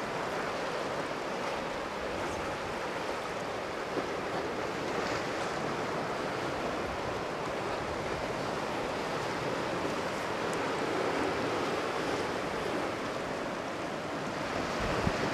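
Steady rushing and churning of seawater where a nuclear power station's cooling water pours out of a concrete outfall into the sea, with some wind on the microphone.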